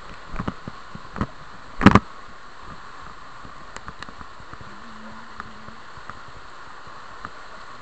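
Steady rushing of a flooded river's turbulent boil churning past a bridge pier. A few brief thumps come in the first two seconds, the loudest about two seconds in.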